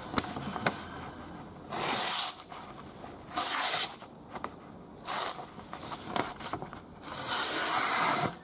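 Voltron V17 folding knife's factory edge slicing through a sheet of paper in four strokes, the last one the longest. The edge cuts paper well, judged quite good.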